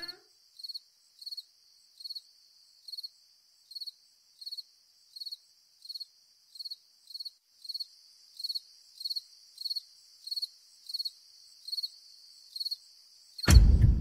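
Crickets chirping in an even rhythm, about three high chirps every two seconds, with a fainter continuous trill joining about halfway through. Near the end a sudden loud, deep hit cuts in.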